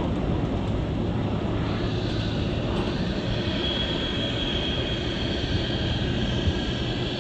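Jet airliner's engines on a departure, a steady rumble joined about three seconds in by a thin high-pitched whine.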